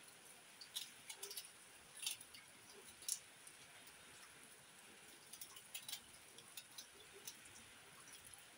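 Faint, irregular small clicks and snaps of a knife cutting through pak choy stalks held in the hand, the sharpest about three seconds in.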